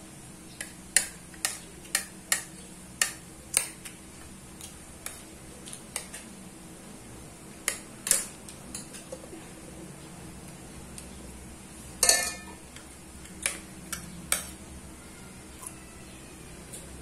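A spoon clinking and scraping against a plate while eating: quick taps about twice a second at first, then scattered, with a louder clatter about twelve seconds in.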